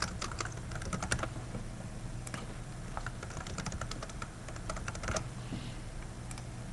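Computer keyboard typing in short runs of keystrokes, with brief pauses between the words.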